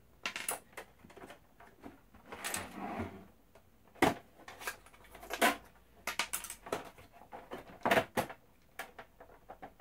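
Plastic casing of an Xbox One console being handled and shifted during disassembly: a string of separate sharp clicks and knocks with a short stretch of scraping in between.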